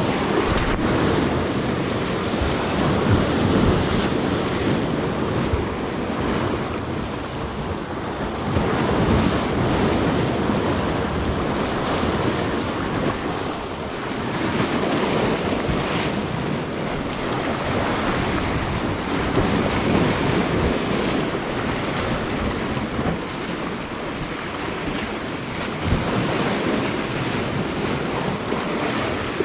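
Waves surging and breaking against a jetty, rising and falling every few seconds, with strong wind buffeting the microphone.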